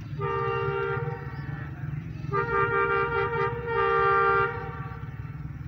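Diesel locomotive's multi-tone air horn sounding three blasts, the first on its own and the last two close together, as the train approaches, over a steady low rumble.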